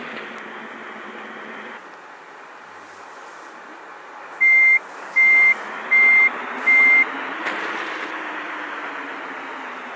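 Vehicle reversing alarm beeping four times at a single steady pitch, evenly spaced about three-quarters of a second apart. Under it is a steady hum of engine and traffic noise that swells briefly near the end.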